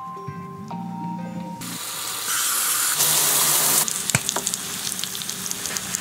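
A phone's marimba-like tone melody plays and stops about a second and a half in. A loud steady hiss follows, and then the crackling sizzle of eggs frying in a pan, with a couple of sharp knocks from a knife cutting bread.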